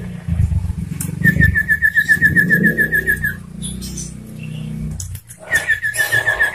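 A sirtu songbird singing two rapid trills of evenly repeated high notes, about ten a second, over a steady low hum.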